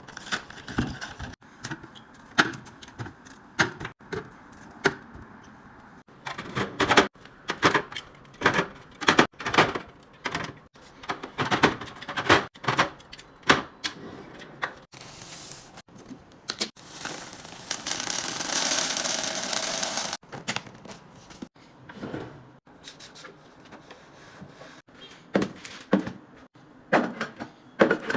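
Food containers, jars and lids being handled and set down: a run of irregular clicks, taps and knocks, with a steady hiss for about three seconds past the middle.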